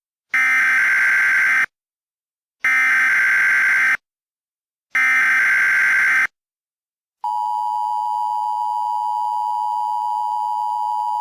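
Emergency Alert System SAME header: three bursts of digital data tones, each a little over a second long with about a second between them. About seven seconds in, the steady two-tone EAS attention signal begins (853 and 960 Hz sounding together).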